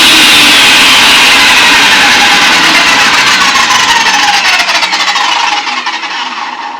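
Table saw fitted with a dado blade running, then switched off and spinning down: its pitch falls and the noise fades over the last few seconds.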